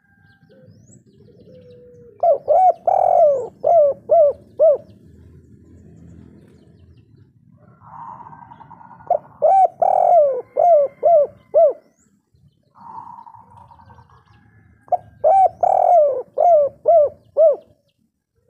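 Spotted dove (derkuku) cooing its "kuk 3" call three times, about six seconds apart. Each call is a run of about seven coos, opening with longer, louder notes and ending in quicker short ones.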